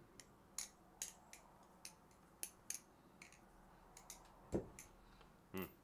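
Butterfly knife (balisong) being flipped: its handles and blade tang click sharply against each other, irregularly about once or twice a second, with two heavier knocks near the end as the handles slap together.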